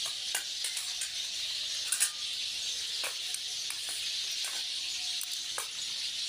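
A few light clicks of a spoon against a plate during eating, the sharpest about two seconds in, over a steady hiss.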